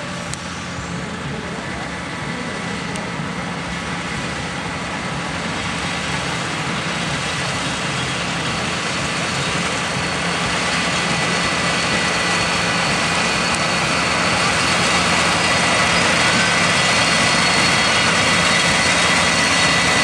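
Kubota combine harvester running while it cuts standing rice: a steady engine drone with a thin high whine above it, growing steadily louder as the machine comes closer.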